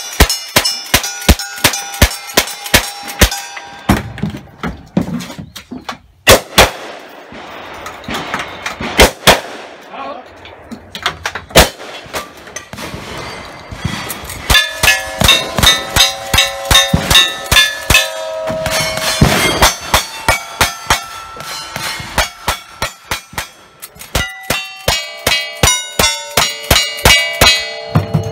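Rapid strings of rifle shots, each quickly followed by the ringing clang of a struck steel target, in several bursts with short breaks between them.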